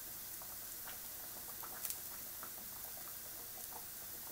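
Faint scattered crackles and small ticks of fingers breaking apart fried sardines on a paper plate, pulling the flesh from the bones. A sharp double click comes about two seconds in.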